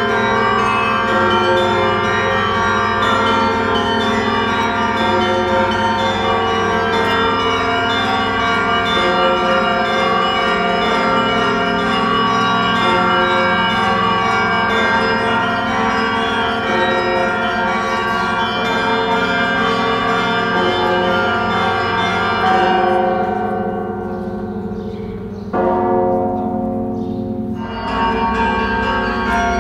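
A full peal of church bells: many bells of different pitches ringing together in a dense, steady chime. Near the end the higher bells fall away for a couple of seconds before fresh strikes come back in.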